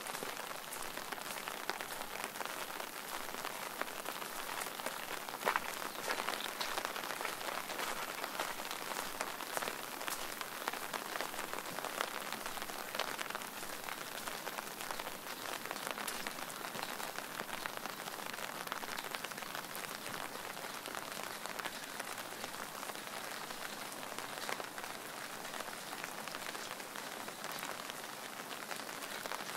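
Steady rain falling: a dense run of small drop ticks over an even hiss, with one sharper drop about five and a half seconds in.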